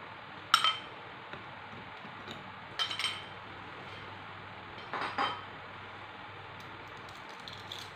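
Metal kitchen utensils clinking against a stainless steel tray and bowl: three sharp clinks with a short ring, about two seconds apart, then a few faint ticks, over a steady low room hiss.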